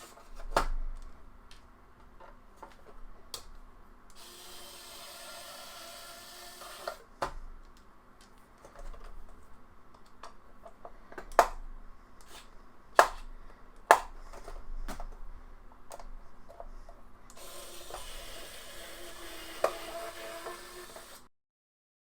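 Small screws being taken out of a PlayStation 5 Blu-ray drive assembly: a run of light clicks and taps from the screwdriver and the drive's metal and plastic casing, with a few sharper knocks, the loudest three coming close together about halfway through.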